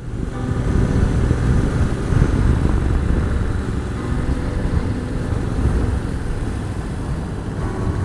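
Honda NC750X motorcycle under way at road speed: its parallel-twin engine running beneath a steady rush of wind and road noise on the on-board microphone.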